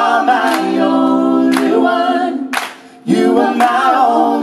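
Wordless sung vocal harmonies from a male lead and female backing singers, held chords with little or no accompaniment, breaking off briefly about three seconds in. A sharp hit keeps the beat about once a second.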